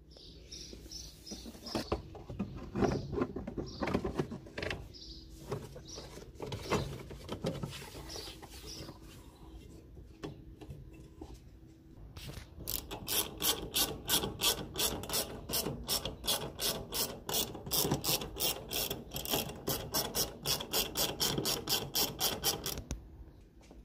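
Ratchet wrench at work: irregular clicks and knocks of tool handling, then from about halfway a steady run of rapid ratcheting clicks, about four a second, that stops shortly before the end.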